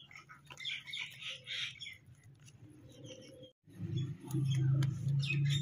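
Small birds chirping with scattered light clicks, then, after a brief break, a steady low hum takes over as the loudest sound.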